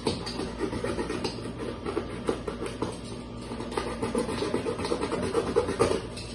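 Cardboard scratching and rustling as hands work inside a cardboard box, with many short, irregular scrapes.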